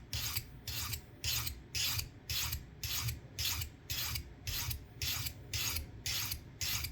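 Swiss army knife blade being drawn repeatedly across a Victorinox pocket knife sharpener: a steady run of short rasping scrapes, about two strokes a second, honing a dull edge.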